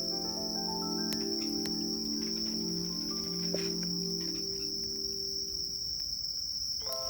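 Crickets trilling steadily in a high, unbroken band, over soft background music of held notes that die away about six seconds in, with new notes entering near the end.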